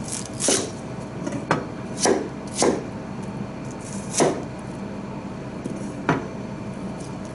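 Kitchen knife slicing a peeled onion on a plastic cutting board: about six separate cuts, each a short crisp stroke, at uneven intervals.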